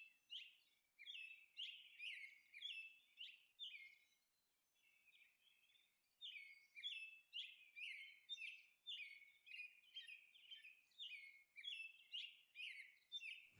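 Faint bird chirping: short, quick chirps that sweep down in pitch, about two or three a second, with a pause of about two seconds near the middle.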